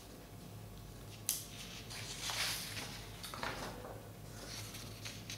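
Paper sheets rustling as a page is turned over, with a sharp click about a second in.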